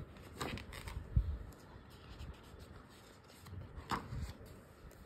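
Sketchbook pages being turned and handled: paper rustling about half a second in and again near four seconds, with a soft low bump just after the first rustle.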